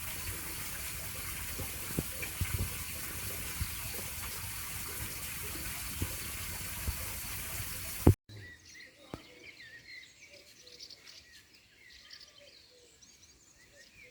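Steady rush of running water with scattered light clicks, cut off suddenly about eight seconds in. After the cut, faint bird chirps and calls.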